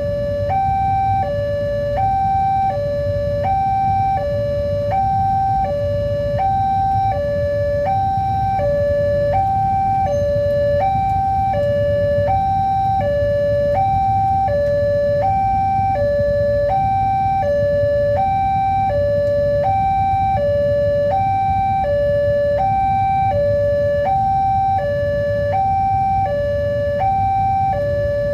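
Railroad level crossing's electronic warning alarm sounding a steady two-tone high-low signal, each tone lasting about 0.7 s, over a low rumble. It signals that a train is approaching and the barriers are down.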